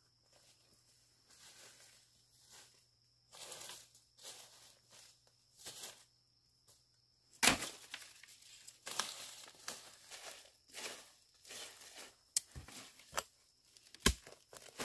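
Footsteps crunching through dry bamboo leaf litter, then sharp chops of a hand hoe striking the forest soil. The loudest chop comes about halfway through, and a few more follow near the end as digging for a bamboo shoot begins.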